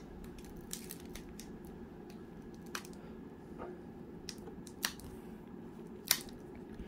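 Faint steady room hum with a handful of short, light clicks and taps from handling trading-card boxes and packs on a table. The sharpest tap comes near the end.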